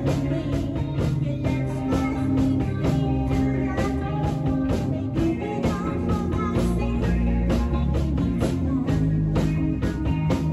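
Rock band playing live: a drum kit beating steadily under held bass and electric guitar notes.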